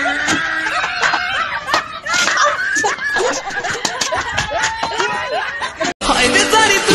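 Several people laughing and snickering in short bursts. About six seconds in it cuts off suddenly and music starts.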